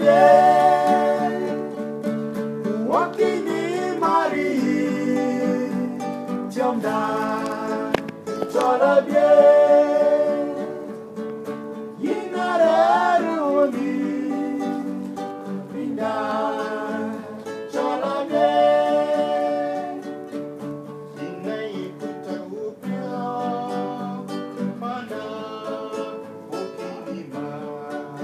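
Male voice singing a song in Dinka to an acoustic guitar, the vocal coming in phrases of a few seconds over steady guitar playing.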